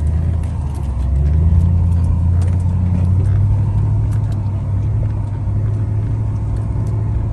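Off-road vehicle engine running steadily under load. Its note steps up slightly about a second in and then holds, with faint scattered ticks and rattles over the drone.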